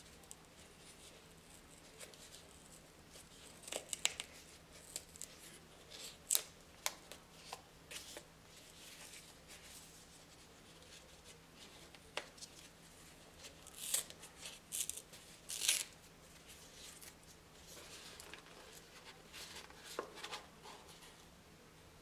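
Tape seal being peeled and torn off a cardboard tea tub, with irregular crackles, scrapes and taps of paper and cardboard as the lid is worked off.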